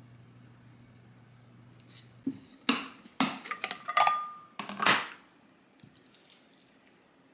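Dishes and utensils being handled, a quick run of clatters and knocks in the middle, one of them leaving a short ringing tone. A low steady hum stops just before the clatter begins.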